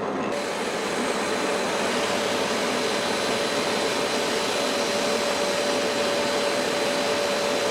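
Bench-top drill press running steadily at constant speed, spinning a wooden rod held between its chuck and a lathe tailstock while the rod is sanded, with a steady motor whine over a wide hiss.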